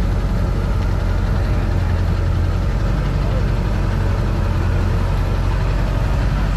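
Pickup truck engine idling in a steady low rumble as the truck reverses slowly.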